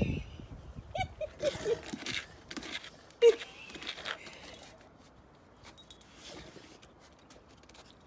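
Rottweiler making a few short, soft whines, the loudest one about three seconds in, with faint rustles and clicks between.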